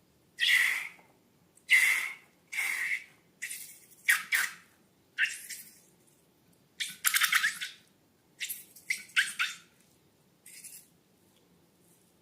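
Slime being handled: about ten short noisy bursts, each a second or less, with brief pauses between them.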